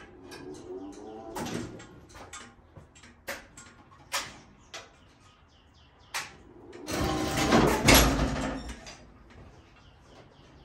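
Big Joe battery-electric forklift being driven: a run of sharp clicks and knocks, then a louder electric motor whir with rolling rumble for about two seconds, about two-thirds of the way through.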